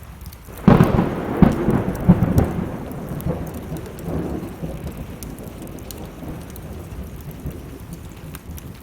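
A thunderclap breaks about a second in, rumbling and crackling and then fading over several seconds. Steady rain falls throughout, with the small pops of a crackling wood fire.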